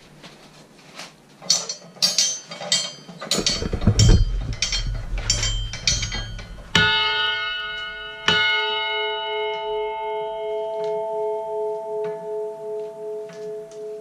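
A run of quick knocks and clatters with a low rumble, then a 24-inch bronze church bell is struck twice, about a second and a half apart. It rings on in a long, slowly fading tone that pulses evenly as it dies away.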